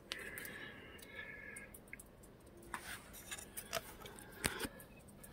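Quiet, scattered small clicks and knocks from hands handling a rifle with a scope-mounted night-vision unit, with a few sharper clicks in the second half.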